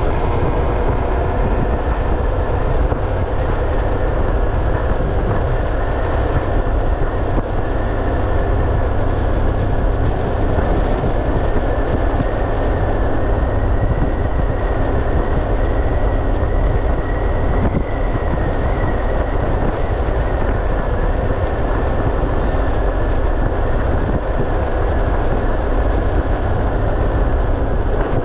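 Motorcycle riding at a steady speed: engine hum under a constant heavy rumble of wind and road noise, with no letting up.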